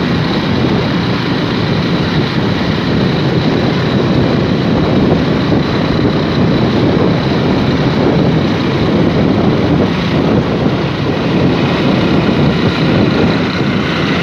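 Steady rush of wind over the microphone with road and engine noise from a vehicle moving at speed.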